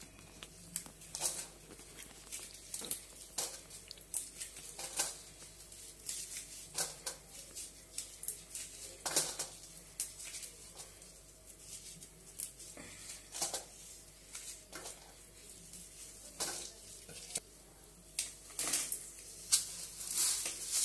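Scattered clinks, taps and knocks of steel plates and kitchen utensils being handled, coming thicker near the end as dried red chillies go into the heating oil in an aluminium kadai.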